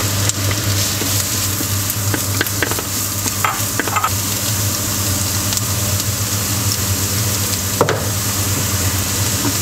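Diced onion and carrot sizzling in oil in a frying pan over medium heat, stirred and pushed around with a wooden spatula that clicks and scrapes against the pan now and then, one sharper knock near the end. A steady low hum runs underneath.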